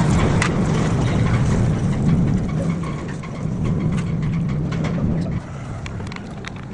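Motorcycle engine running steadily, with a low hum that drops in level about five and a half seconds in.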